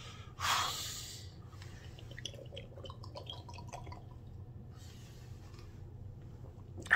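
Two people downing shots from miniature glass bottles: faint gulps and small clicks of glass. A brief breathy sound comes about half a second in.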